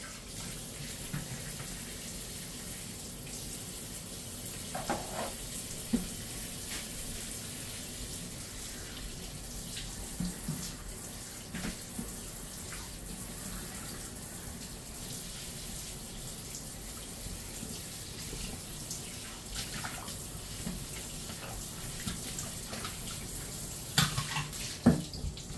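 Kitchen tap running steadily into a stainless steel sink during hand dishwashing, with occasional clinks and knocks of dishes and a few louder knocks near the end.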